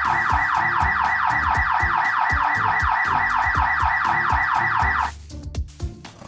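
Car-alarm-style electronic warble: a tone sweeping over and over, about five sweeps a second, that cuts off suddenly about five seconds in. Background music with a beat plays underneath.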